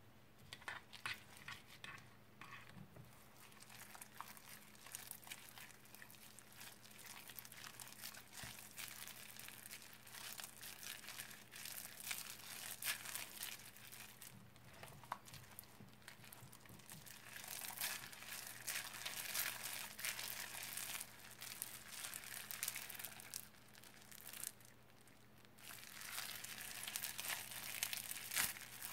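Crunchy slime full of foam beads being squeezed and kneaded by hand: a dense run of fine crackles and pops, louder in stretches around the middle and again near the end, with a short lull a few seconds before the end.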